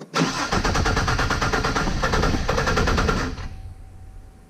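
Cadillac CTS 3.6L V6 being cranked on the starter motor: a fast, even chugging that lasts about three seconds, then stops and dies away.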